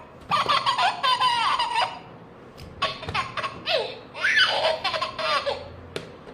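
A baby laughing and giggling in short, high-pitched bursts, in three or four spells with brief pauses between them.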